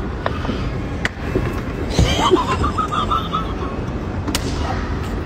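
A short vocal outburst about two seconds in, over a steady low rumble, with a few sharp clicks.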